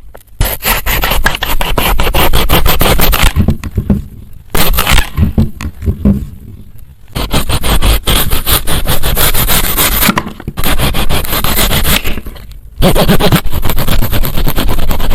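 A plastic knife sawing and slicing through a crisp apple, giving a dense crackly scraping. It comes in about five strokes of one to three seconds each, with short pauses between them.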